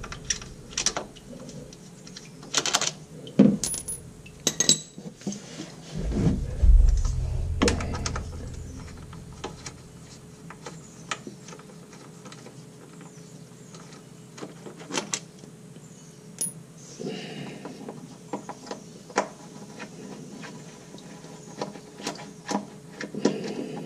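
Light metallic clicks and clinks as T40 Torx bolts are unscrewed by hand from a ZF 8-speed transmission pan and handled, with one dull thump about six seconds in.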